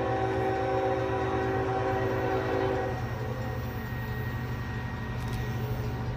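Union Pacific locomotive air horn sounding one long blast on an approaching train, a steady chord of several notes that cuts off about three seconds in, over a low steady rumble.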